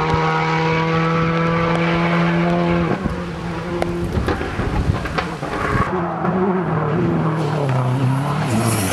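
Rally car engines at full power: one car holds a steady, high-revving note for about three seconds, followed by a rougher stretch with crackles. A second rally car then comes in, its engine note falling as it slows toward a corner near the end.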